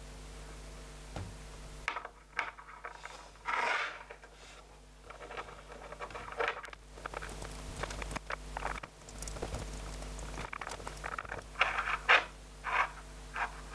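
Small steel chuck jaws of a hand drill clicking and scraping against each other and on a wooden tabletop as they are handled and fitted together, in scattered light taps with a cluster of sharper clicks near the end.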